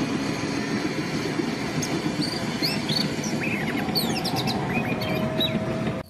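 Main battle tanks of the M1 Abrams type moving, giving a steady dense engine and track noise. Scattered short high chirps sound over it throughout.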